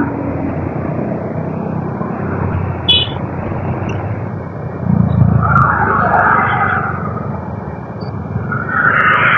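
Motorcycle ride traffic noise: a steady low rumble of engine and road noise that swells twice, about five and nine seconds in, with a brief high beep about three seconds in.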